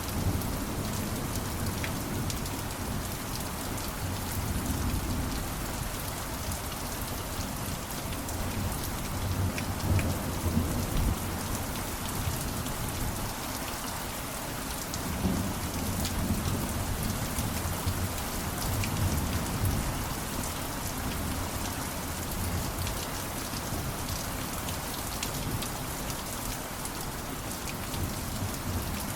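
Steady rain falling on a surface, with countless small drop impacts. Low rumbles of thunder swell and fade several times, the strongest about ten seconds in.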